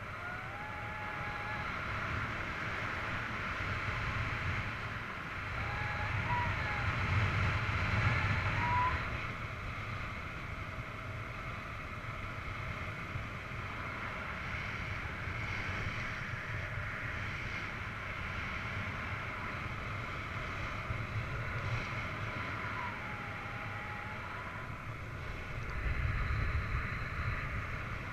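Airflow rushing over the microphone of a camera on a paraglider pilot in flight: steady wind noise, louder about a quarter of the way in and again near the end. A few faint, short whistling tones glide in pitch now and then.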